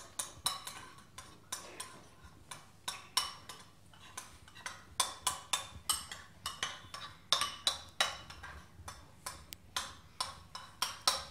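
A metal spoon beating eggs in a white ceramic bowl, clinking against the bowl about three times a second in an uneven rhythm.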